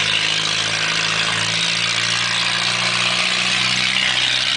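Demolition derby car's engine running hard at steady high revs under acceleration, with a loud rushing noise over it; both fall away suddenly at the very end.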